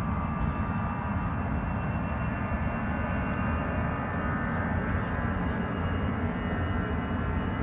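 Airbus A319's jet engines running: a continuous low rumble under a high whine that rises slowly in pitch.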